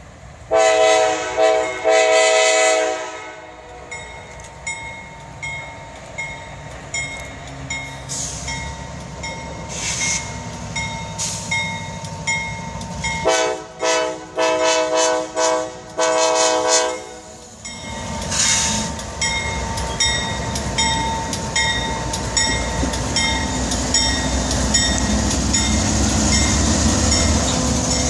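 CSX freight train's diesel locomotives sounding their multi-note air horn in two sets of blasts, one near the start and one around the middle, for a grade crossing. The locomotive bell rings at about two strokes a second in between, and the engines' rumble grows louder as the locomotives pass close by near the end.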